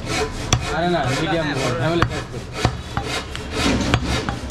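Large butcher's knife cutting goat meat on a wooden log chopping block, in a quick series of strokes two or three a second, with a few sharp knocks of the blade on the wood.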